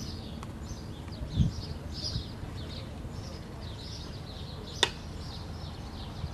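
Small birds chirping over and over, with a low background rumble. A single sharp click about five seconds in.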